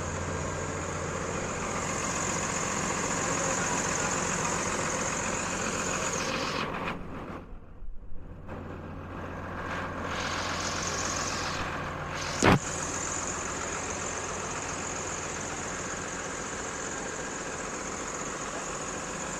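A heavy vehicle's engine running steadily, dropping away briefly about seven to nine seconds in, with one sharp click at about twelve and a half seconds.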